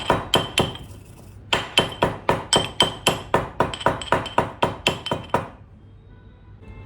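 Pestle pounding in a mortar: quick ringing strikes, about four a second, with a short break about a second in and a stop about five and a half seconds in. Tulsi flowers and black peppercorns are being crushed to a fine powder.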